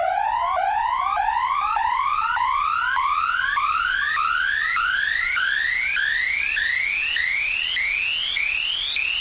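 Synthesized pitched riser from a Native Instruments Massive patch: a tone that sweeps upward about every 0.6 seconds, each sweep starting higher than the last, so the whole sound climbs steadily, with a hiss that grows brighter as it rises.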